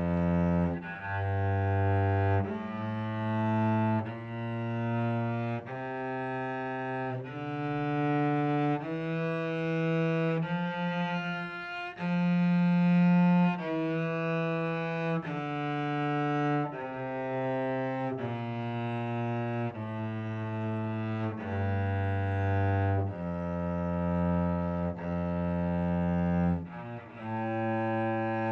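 Cello playing a one-octave F major scale in slow, separate bow strokes, about one and a half seconds per note. It climbs from the low F, fingered with the fourth finger on the C string, up to the F an octave higher about halfway through, then steps back down.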